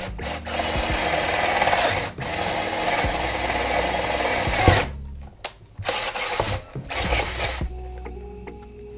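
Cordless drill boring a hole into a wooden board. The drill runs for about five seconds, with a short break about two seconds in, then stops.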